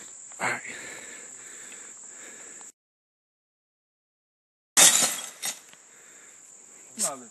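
A thrown hammer smashing into a glass-fronted target: one sharp crash of breaking glass about five seconds in, then a smaller clink half a second later. Crickets chirr steadily behind it, cut by a couple of seconds of dead silence just before the crash.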